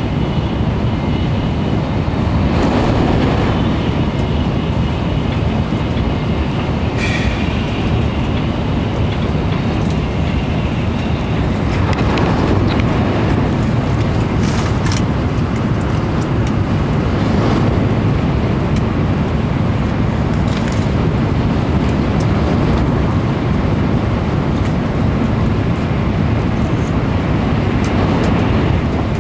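Steady rumble and rush of a Shinkansen bullet train running at speed, heard inside the passenger cabin, with a few brief sharper hisses along the way.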